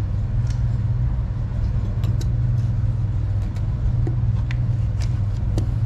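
A steady low mechanical hum, with scattered light metallic clinks and taps as a pry bar works at an old shaft stuffing box flange to break it loose.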